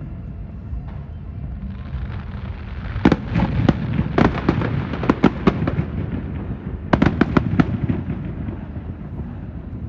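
Fireworks display: a steady low rumble of bursts, broken by two quick runs of sharp crackling pops, one about three seconds in and a shorter one around seven seconds.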